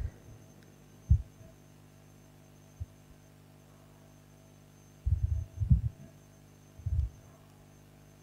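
Steady low electrical hum, broken by a few short, dull low thumps. The thumps come singly at first, then in a cluster about five to seven seconds in.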